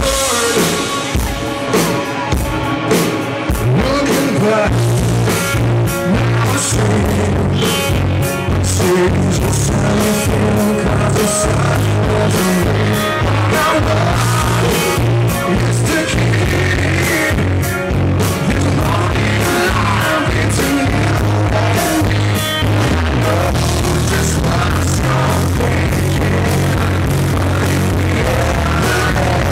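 Live rock band playing with a male lead singer and electric guitar, loud and distorted, recorded from right beneath a club PA speaker.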